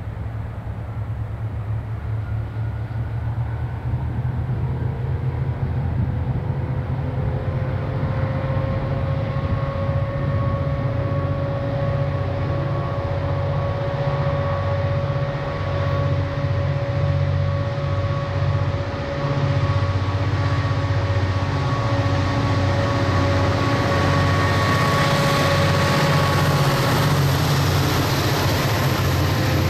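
KiwiRail diesel-electric locomotive working under power: a heavy low engine throb with a steady turbocharger whine that comes in several seconds in, the whole sound growing louder as the locomotive nears. A hiss builds near the end.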